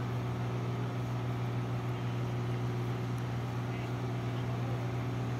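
Engine of an aerial work lift running with a steady, even low hum while it holds workers up under a canopy.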